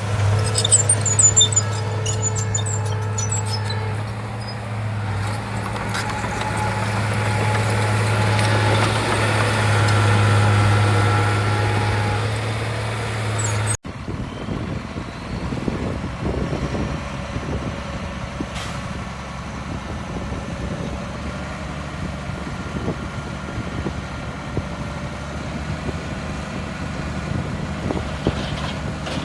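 Shantui bulldozer's diesel engine running steadily under work, with a few high squeaks in the first couple of seconds. The sound breaks off abruptly about fourteen seconds in and picks up again with a different engine note and irregular knocks.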